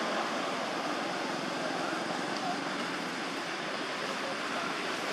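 Steady outdoor background noise, an even hiss with no clear single source, with a few faint brief chirps over it.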